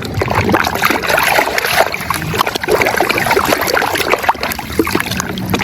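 Water splashing and trickling as a muddy toy vehicle is washed, with many small irregular splashes throughout.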